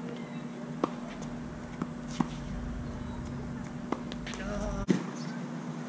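A tennis rally: a few sharp knocks from racket strikes and ball bounces, spaced about a second apart, over a steady low hum.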